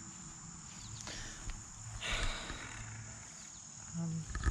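Crickets chirping in a steady high-pitched trill, with a brief rustling scrape about two seconds in.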